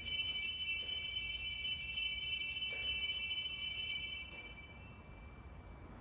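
Altar bells, a cluster of small hand bells, shaken in a continuous jingling ring for about four seconds, then dying away. This is the bell rung at the elevation of the chalice during the consecration at Mass.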